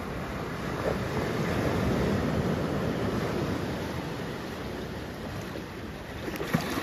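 Waves washing on the shore, the wash swelling about two seconds in and then easing off, with a sharp click near the end.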